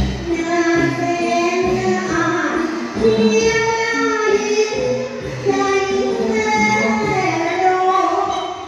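A woman sings a long, sustained melody into a microphone, amplified over instrumental accompaniment with a regular percussion beat.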